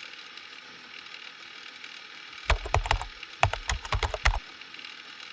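Steady background hiss; about two and a half seconds in, a quick run of sharp clicks and knocks with dull thumps, lasting about two seconds.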